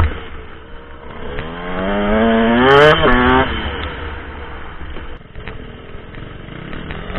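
2004 KTM SX125 two-stroke single-cylinder dirt bike engine revving up in one long rising pull, then dropping off the throttle about three and a half seconds in to a quieter low rumble.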